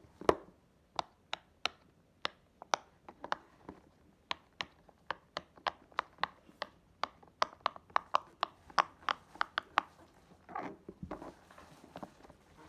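Silicone pop-it fidget toy being pressed bubble by bubble: a long run of sharp little pops, about three a second. A brief rubbing sound of handling comes about ten and a half seconds in.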